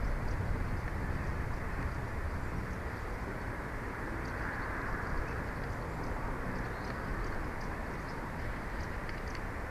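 Steady wind noise with a low rumble, and faint short high chirps scattered throughout.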